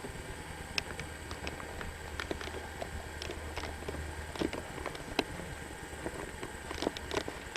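Faint, irregular light clicks and ticks of footsteps and camcorder handling while walking, over a steady low hum.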